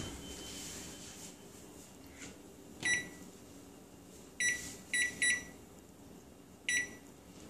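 Electronic button beeps from a wall oven and microwave keypad as a timer is set, one beep per press. There are five short, high beeps of the same pitch: one about three seconds in, three close together about a second and a half later, and one near the end.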